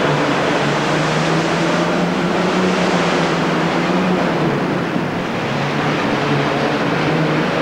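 Modified pulling tractor's single Allison V-12 aircraft engine running flat out under load as the tractor drags the weight sled: a loud, steady drone that eases slightly about five seconds in.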